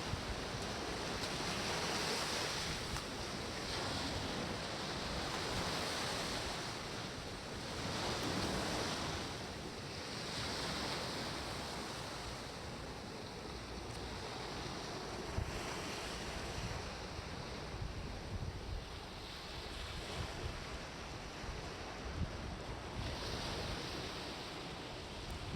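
Ocean surf washing onto the beach, swelling and fading every couple of seconds, with wind rumbling on the microphone.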